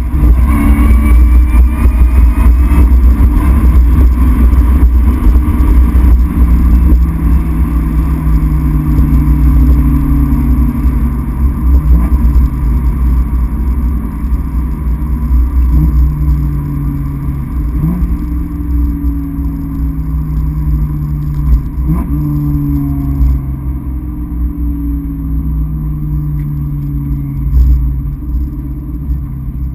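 1997 Ford Mustang Cobra's 4.6-litre DOHC V8 and road rumble heard from inside the cabin while driving. The engine pitch rises briefly at the start as the car accelerates, then holds as a steady cruising drone that grows gradually quieter.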